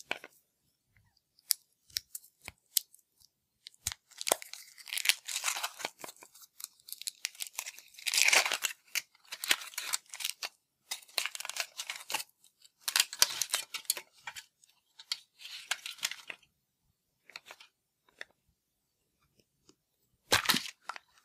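Foil wrapper being crinkled and torn off a chocolate Easter bunny, in bursts of rustling and tearing, with a few small clicks before it starts and a final burst near the end.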